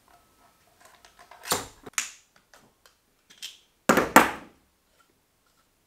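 Short clatters and knocks of tools and airless sprayer parts being handled on a concrete floor while the sprayer's filter is being opened. There is a burst about one and a half seconds in and a louder double burst about four seconds in.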